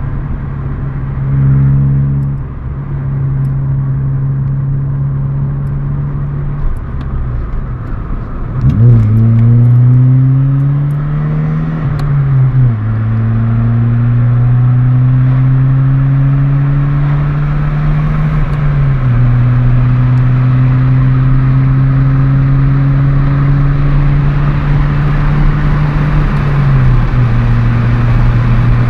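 Opel Tigra's four-cylinder engine revved through an RS Racing aftermarket exhaust. It is held at steady speeds between about 3000 and 5000 rpm, with the pitch stepping up and down a few times and one slow rise in revs about nine seconds in.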